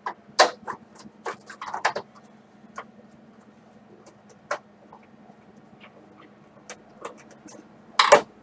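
Scattered clicks and knocks of a screwdriver and screw against the plastic base of an upright vacuum cleaner as a screw is driven in, with a louder clatter near the end.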